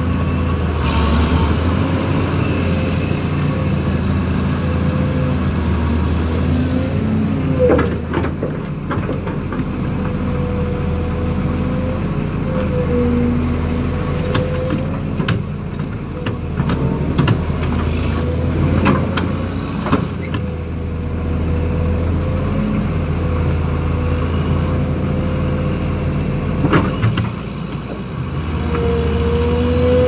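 Heavy diesel engines of an excavator and a Caterpillar D7F bulldozer working under load as the excavator drags the bogged dozer out on a chain, the dozer's tracks helping. Steady engine note with a whine that wavers slightly in pitch, and a few sharp knocks along the way.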